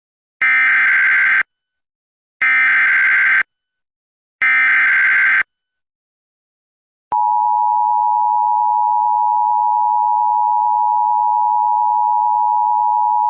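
Emergency Alert System header: three one-second bursts of warbling data tones, then a steady attention tone that starts about seven seconds in. This sequence opens a Special Marine Warning broadcast.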